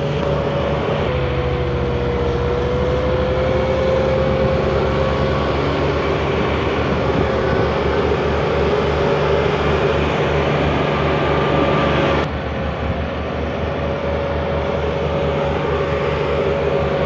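Massey Ferguson 360 tractor's three-cylinder diesel engine running steadily under load, with an even low throb, as it pulls a heavily loaded sugarcane trolley.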